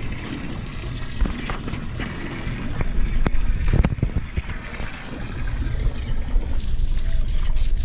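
Outdoor wind noise on the microphone with water sounds, broken by a few sharp clicks and knocks.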